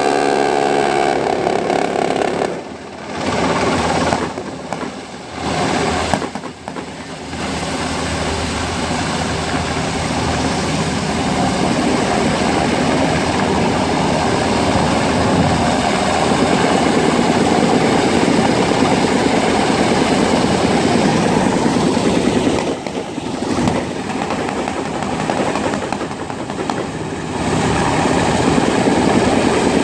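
Black Hawk-type military helicopter hovering low, its rotor and turbine noise loud and steady, with a pulsing rotor beat at first. The sound dips briefly several times.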